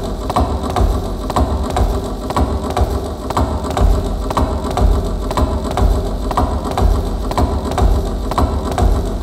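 A milking machine running in a milking parlour, with its pulsators ticking in an even rhythm about twice a second over the steady, noisy rush of the vacuum system.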